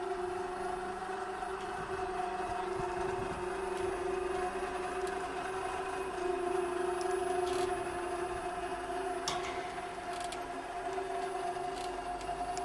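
A steady mechanical hum with a constant, unchanging whine, with a few faint clicks in the second half.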